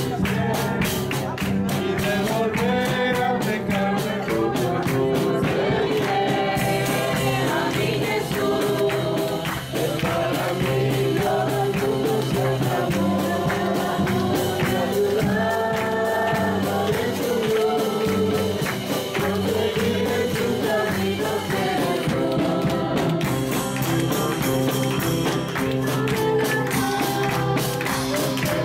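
Congregational gospel singing with instrumental backing and a steady percussive beat that PANN hears as tambourine.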